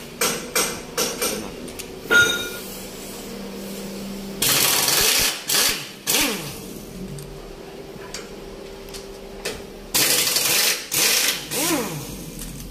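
Air impact wrench loosening the stabilizer bushing bracket bolts, 12 mm, in bursts of hammering: a few quick short bursts near the start, then longer runs about four seconds in and about ten seconds in, each followed by the motor's whine rising and falling.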